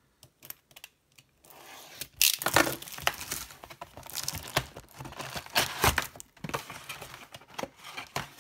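Plastic shrink wrap being torn off a sealed trading-card hobby box and crinkled by hand, in irregular bursts with the loudest rips about two and six seconds in. A few light clicks come before it.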